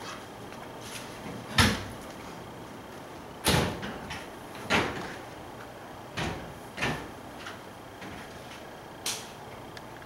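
A series of about six sharp knocks and clunks at irregular intervals, like doors or cabinets being opened and shut. The loudest comes about one and a half seconds in.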